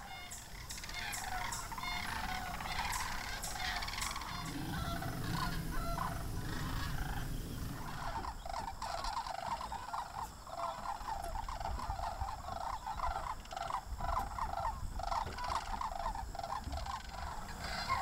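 A flock of sandhill cranes calling, many overlapping calls at once, the chorus growing denser about halfway through.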